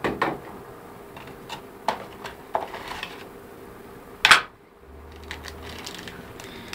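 Hands handling phone accessories and their packaging on a tabletop: a scattering of light clicks and knocks as items are set down and taken out of a cardboard box, the loudest knock about four seconds in.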